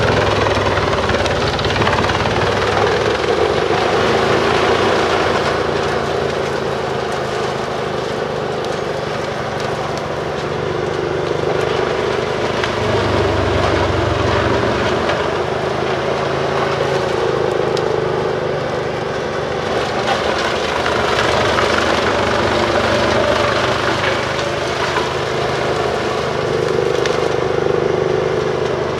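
Bruks 1006 ST wood chipper running on its separate 720 hp engine while chipping logging residue: a steady heavy engine drone under a dense, loud chipping noise that swells and eases every few seconds.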